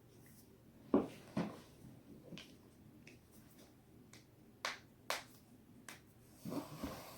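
Spinal joints cracking: a series of sharp pops, with two loud cracks about a second in, two more a little before the middle, and a quick cluster of smaller pops near the end.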